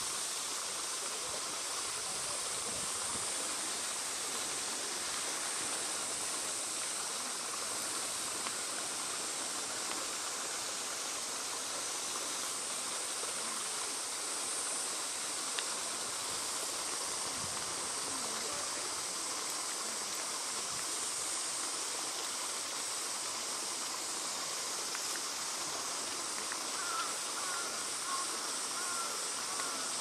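Shallow, rocky mountain stream flowing: a steady rush of running water.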